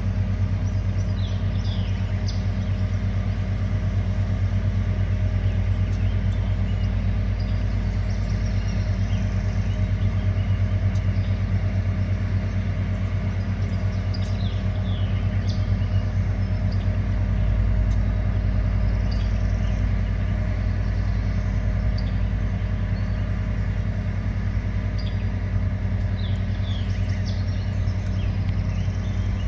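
Steady low drone of the river car ferry's engine running as it crosses toward the ramp, with small birds chirping over it.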